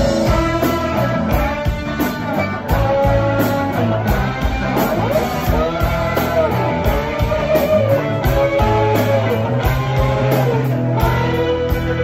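A rock band playing live: electric guitars with bending, wavering notes over bass and a drum kit with a steady cymbal beat.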